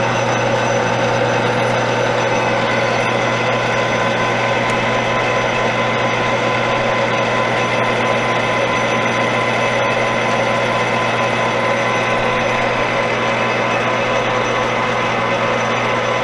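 Metal lathe running steadily with its spindle at 755 rpm while boring out a brass part, a constant machine hum with a few steady tones.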